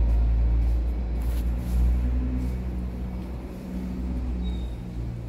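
A motor vehicle's engine running nearby: a steady low rumble with a hum, loudest in the first couple of seconds and easing off toward the end.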